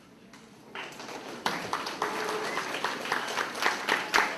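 Audience applause in a hall, starting about a second in and building to steady clapping.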